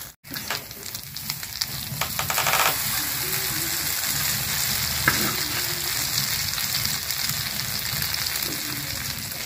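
An egg omelette frying in ghee on a hot iron tawa, sizzling steadily. The sizzle grows louder about two seconds in. A metal spatula scrapes across the tawa and knocks on it once near the middle.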